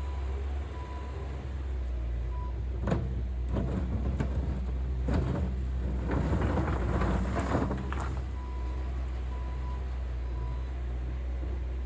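Skid steer's diesel engine running steadily, with its backup alarm beeping about once a second in the first few seconds and again near the end. Several sharp clanks in between.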